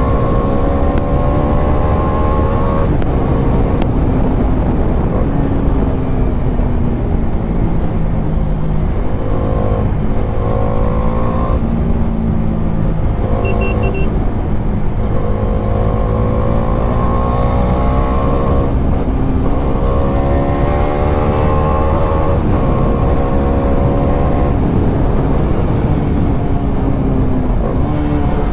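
Bajaj Dominar 400's single-cylinder engine pulling through the gears on the move. The revs rise again and again, each climb broken off by a shift, over a steady low rumble.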